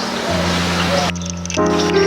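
Background music with soft, sustained notes, and a short break in the higher notes about a second in.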